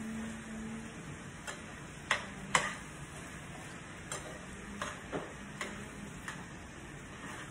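A metal spoon stirring chicken pot pie filling in a steel skillet, clinking against the pan in irregular taps, the two loudest a little over two seconds in and several lighter ones after. A faint sizzle of the filling cooking in the pan runs underneath.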